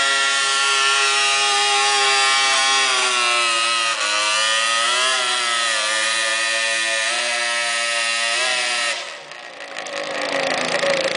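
Garden pulling tractor's engine running wide open through open vertical exhaust stacks, dragging a weight-transfer sled; its pitch dips and wavers as the engine labours under the load. About nine seconds in the throttle comes off and the revs fall away.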